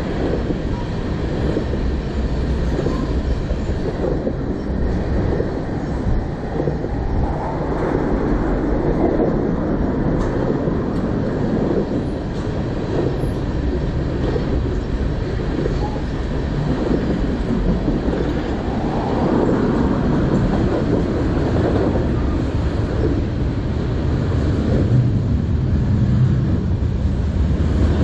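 Freight train tank cars rolling past underneath: a steady rumble of steel wheels on the rails.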